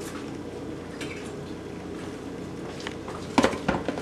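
Steady low hum, then a few seconds in a quick cluster of sharp clinks and knocks as a metal spoon strikes a plastic food container.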